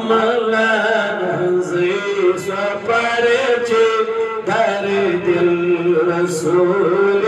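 A man chanting a devotional Urdu naat unaccompanied, in long melodic phrases with held, wavering notes.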